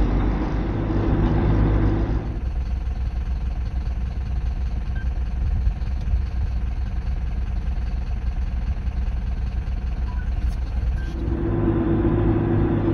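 Diesel engine of a Mercedes Vario 818 expedition truck running steadily under load, heard from inside the cab as a low drone while it pulls uphill. About two seconds in it gives way to a softer, even rumble. The drone returns about eleven seconds in.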